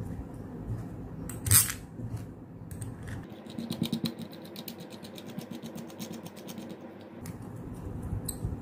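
Parts of a homemade coil-winding jig (wooden discs, PVC pipe and a 12 mm bolt) being fitted together by hand. A sharp knock comes about one and a half seconds in, then a rapid, even clicking rattle runs for about four seconds, and one more click comes near the end.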